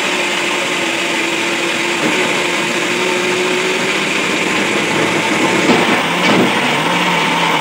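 Electric mixer grinder running steadily, coarsely grinding soaked idli rice with dried red chillies, ginger and salt into a thick batter.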